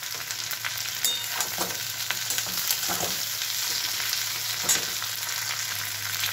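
Potato pieces and onion flower stalks sizzling in hot oil in a metal kadai, with a metal spatula scraping and clicking against the pan several times as they are stirred.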